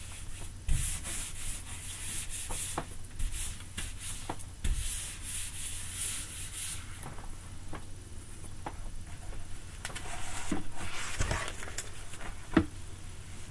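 Whiteboard eraser rubbing back and forth across a whiteboard in quick hissy strokes, pausing about seven seconds in before a second run of strokes. A few light knocks, the sharpest near the end.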